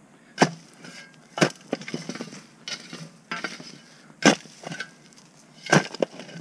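Steel round-point shovel digging into rocky, root-filled soil: about six sharp strikes of the blade on stone, a second or so apart, with scraping and crunching of soil and gravel between them.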